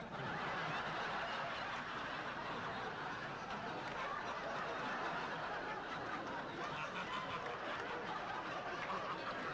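A large audience laughing at a punchline. The laughter breaks out all at once and carries on steadily without a break.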